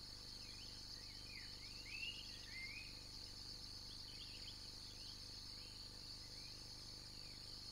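Steady high-pitched chorus of insects, with short bird chirps over it, busiest in the first few seconds.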